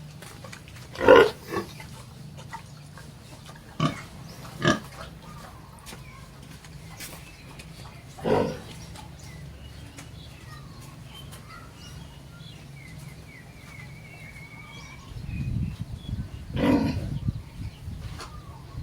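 Pigs calling in the pen: about five short, loud calls with pauses between them, over a low steady hum.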